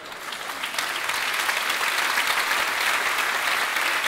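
Theatre audience applauding a stand-up punchline, the clapping building over the first second and then holding steady.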